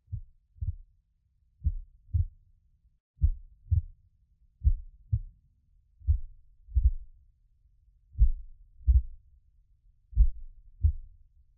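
Heartbeat sound effect: paired low thumps (lub-dub) about every one and a half seconds, slowing slightly near the end.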